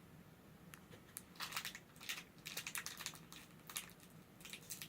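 Plastic candy wrapper crinkling, with faint clusters of sharp crackles as it is handled and pulled open.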